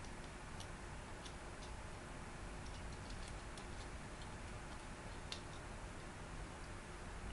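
Light, irregular plastic clicks and ticks from a small Transformers Power Core Combiners Bombshock figure's joints and parts being turned and snapped into place by hand, with a slightly sharper click about five seconds in.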